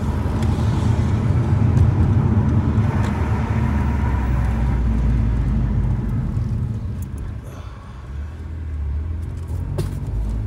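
Honda Civic Type R's turbocharged four-cylinder engine and road noise heard from inside the car while driving, a steady low rumble that eases off about three-quarters of the way through and then picks up again.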